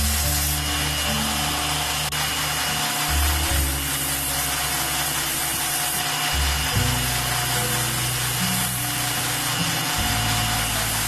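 Background music with a steady bass line, over the continuous hiss of a power grinder working the steel of a leaf-spring spear blade.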